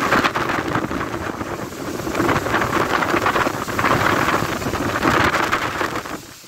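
Heavy rain and strong gusting wind of a severe thunderstorm, with the wind buffeting the microphone. The noise eases briefly near the end.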